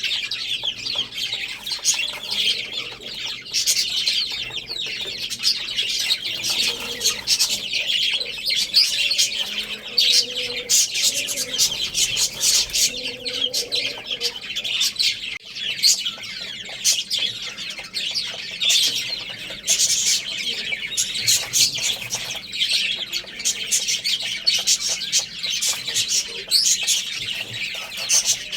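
A flock of small pet birds chattering with dense, continuous high-pitched chirps, with faint lower calls in the first half.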